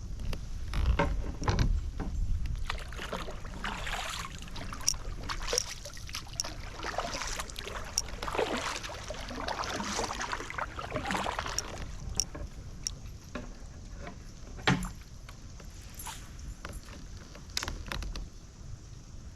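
Kayak being paddled or moved along: irregular splashing and rustling of water with small knocks against the hull, and one sharper knock about three quarters of the way through.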